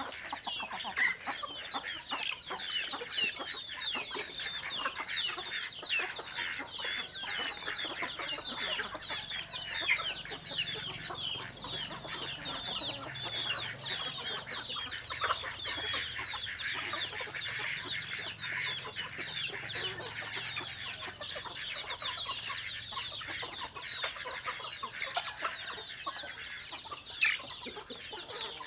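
A flock of chickens calling over one another, a dense chorus of short, high, falling cheeps.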